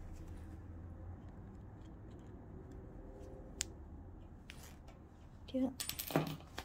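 Pliers and fingers working a no-sew metal trouser hook out of the waistband fabric: faint scattered clicks with a sharp click about three and a half seconds in, then louder fabric rustling and scraping near the end.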